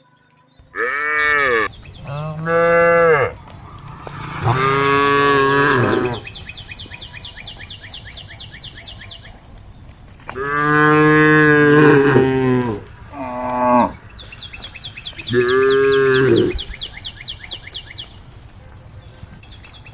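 Cows mooing: about six long, loud moos, the first beginning about a second in and the last ending near 16.5 s, with pauses between. A fast, even high-pitched chirring ticks along between the calls.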